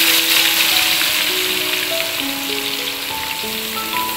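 Diced, seasoned tempeh just tipped into hot oil, deep-frying in a wok with a loud, steady sizzle that eases slightly. A simple background melody of single held notes plays underneath.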